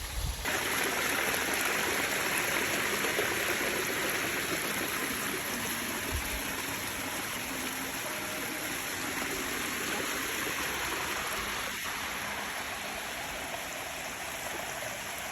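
Steady rushing of running water, stepping up in level about half a second in.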